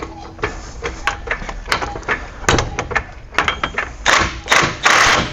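Irregular metallic clicks and knocks of tools and parts being worked on a pickup truck's front wheel hub, with two short, harsh noisy bursts near the end.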